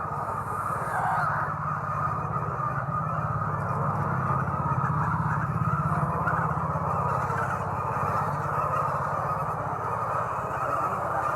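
Steady din of a large flock of laying hens in a poultry house, over a low, steady machine hum.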